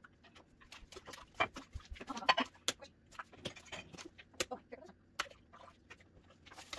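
Dishes and utensils clinking and knocking against each other and the sink as they are handled and washed: an uneven string of sharp clatters.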